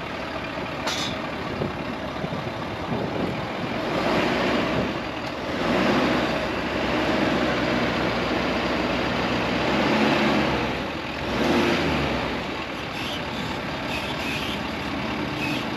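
Lifted pickup truck's engine running at low speed under load, swelling louder in several surges of throttle as the truck creeps a front tyre up a steel flex ramp.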